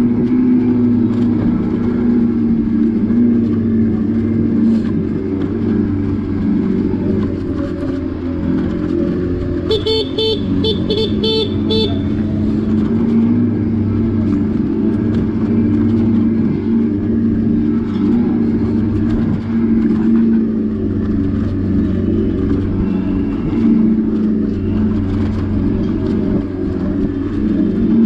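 Revolt RV400 electric motorcycle being ridden over a rough dirt road, a steady low hum with road and wind noise. About ten seconds in, a horn toots about six times in quick succession over two seconds.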